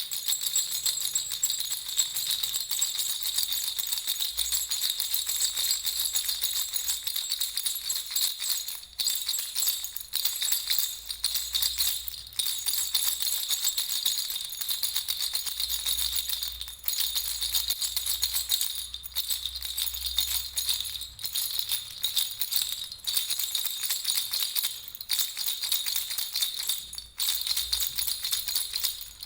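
Baby's rattle (jhunjhuna) with small bells, shaken continuously in a steady jingle, with short breaks every couple of seconds.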